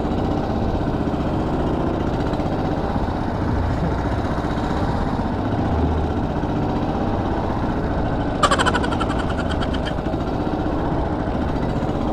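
Small fishing boat's engine running steadily under way, with water washing past the hull. About two-thirds of the way through, a short run of rapid clicks lasts about a second and a half.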